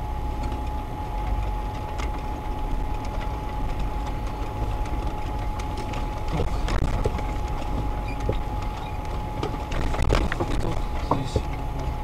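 Off-road vehicle heard from inside the cabin, its engine running with a low rumble as it drives over a rough, snow-covered forest track. Knocks and rattles come from the bumps, several of them about halfway through and again near the end, over a steady thin whine.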